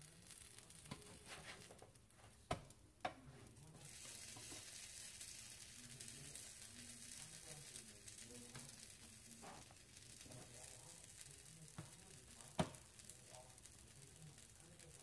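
Bean and cheese pupusas frying with a faint, steady sizzle on an electric griddle, the hiss filling out about four seconds in. A few sharp clacks of a slotted spatula against the griddle as they are turned, the loudest near the end.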